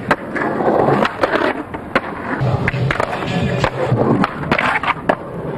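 Skateboarding on ledges: wheels rolling on concrete with a string of sharp board pops, clacks and landings, over background music.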